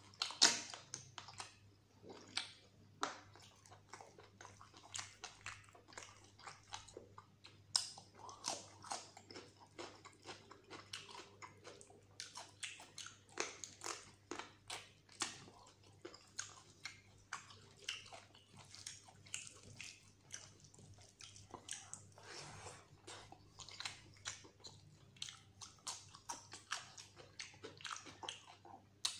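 A person chewing and smacking with an open mouth, eating mutton curry and rice by hand. Wet, sticky mouth clicks and bites come in quick, irregular succession.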